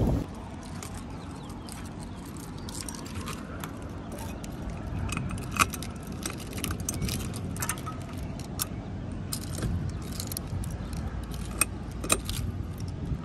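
A bunch of keys jangling and clicking as they are worked in the lock of a motorhome's entry door, with a few sharper clicks about halfway through and near the end. A low steady rumble runs underneath.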